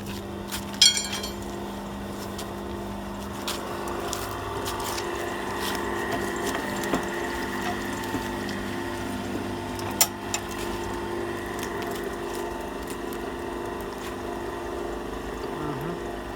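V-080 cable-stripping machine with two knife shafts running with a steady motor hum. A few sharp metallic clicks come through it, a ringing one about a second in and another about ten seconds in.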